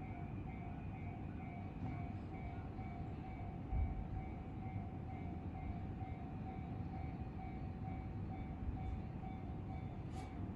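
Japanese railway level-crossing alarm ringing steadily, an evenly repeating electronic bell tone, over a low rumble, with one thump about four seconds in.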